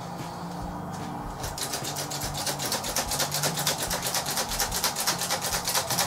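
Hand-operated metal cup flour sifter working wheat and rye flour through its mesh with a quick, even rasping, about six or seven strokes a second, starting about a second and a half in.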